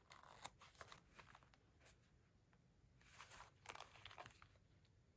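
Faint handling noise of small leather wallets and a zipped coin pouch: soft rustles and light clicks, with a few slightly louder rasps about three to four seconds in.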